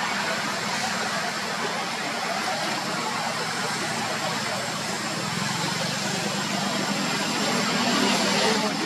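Steady vehicle engine noise, with a low hum that grows a little louder near the end.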